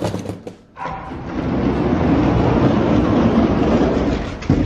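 Hot Wheels diecast toy monster trucks rolling on their plastic wheels across a cork track surface, giving a steady low rumble with scattered clicks. A sharp knock comes near the end.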